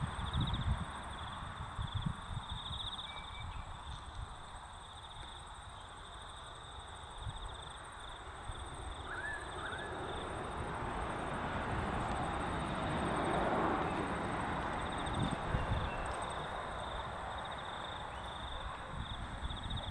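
Outdoor ambience: wind rumbling on the microphone and a steady high, pulsing insect trill, with a short bird chirp about nine seconds in. A rushing noise swells and fades in the middle.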